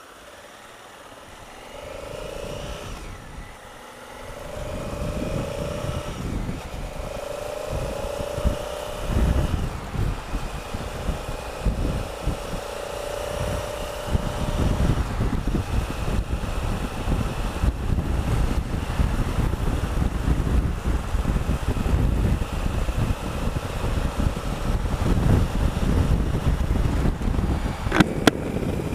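Honda Africa Twin CRF1000L's parallel-twin engine accelerating, its pitch rising four times in the first half as it pulls up through the gears, while wind buffeting on the microphone grows with speed. Two sharp clicks near the end.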